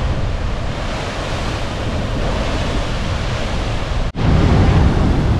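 Heavy ocean surf crashing and churning against rock cliffs in a narrow inlet, a steady loud rush of water with wind buffeting the microphone. About four seconds in, the sound cuts out for an instant and comes back louder and deeper.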